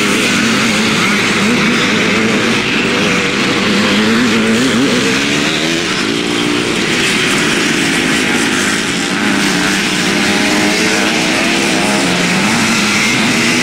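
Engines of several vintage motocross motorcycles racing, revving up and down, their pitches rising and falling and overlapping.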